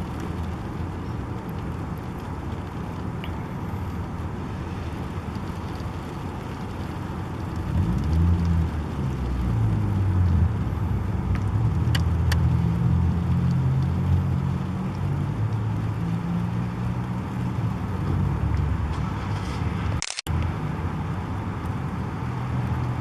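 City street traffic, with a motor vehicle's engine rumbling close by; the rumble grows louder about eight seconds in and eases off about ten seconds later. The sound cuts out for an instant near the end.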